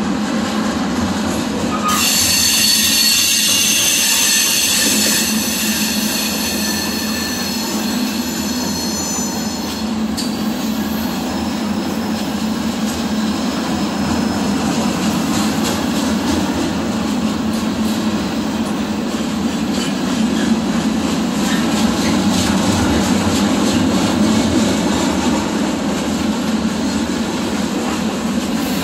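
Freight cars of a CSX train rolling past close by, a loud steady rumble of steel wheels on the rails. A high, several-toned wheel squeal sets in about two seconds in and dies away by about ten seconds.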